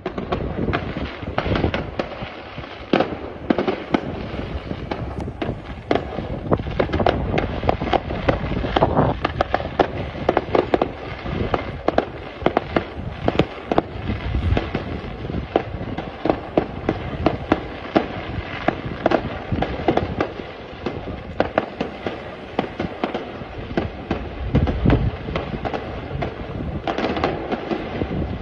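Fireworks display going off: a rapid, continuous barrage of bangs and crackles with deeper booms mixed in.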